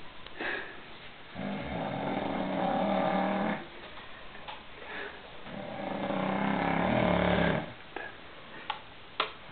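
A man snoring: two long snores, each about two seconds, with quieter breathing between them. A couple of faint clicks come near the end.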